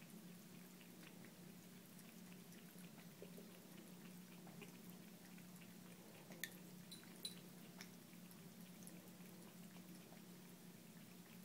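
Faint, irregular clicks of a cat lapping water at a sink drain, over a steady low hum. Two sharper clicks come a little past the middle.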